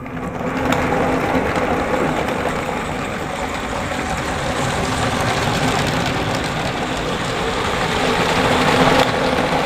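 LEGO City 60336 freight train running laps on plastic LEGO track: the Powered Up train motor whirring and the wheels rumbling over the rails. It comes up to speed in the first half second and runs on steadily.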